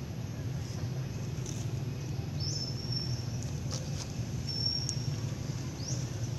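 Outdoor ambience: a steady low rumble with about three short, high chirps that rise and then hold, and a faint click near the middle.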